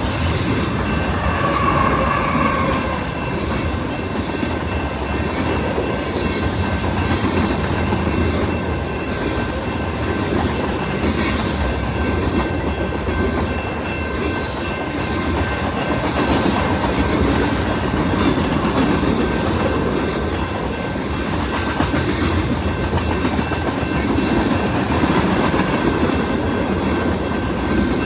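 Freight train rolling past: a steady rumble of wheels on rail with irregular clicks from the rail joints and a thin, steady, high squeal throughout.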